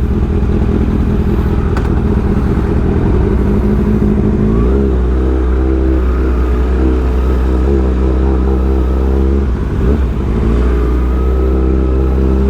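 Kawasaki ZX-6R inline-four engine running steadily as the motorcycle is ridden, its note changing and then settling about five seconds in.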